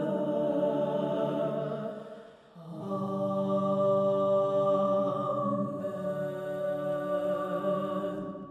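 Four-part SATB choir singing the closing words "ever. Amen" in sustained chords: the chord on "ever" dies away about two seconds in, then the "Amen" chords are held very softly and fade out at the end.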